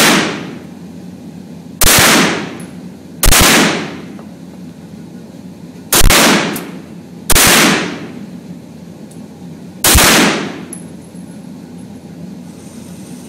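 Beretta CX4 Storm 9mm carbine fired five times as single shots, one and a half to two and a half seconds apart, each followed by a short echo in the indoor range.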